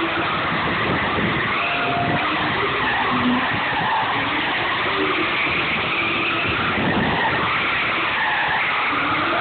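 Drift car sliding, its tires screeching in a long wavering squeal with the engine running hard underneath.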